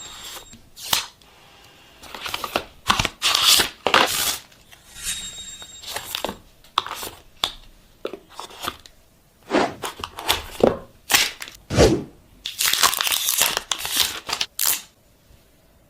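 Packaging being torn open and crinkled by hand: irregular bursts of tearing and crinkling with short pauses between, and a longer stretch of continuous crinkling near the end.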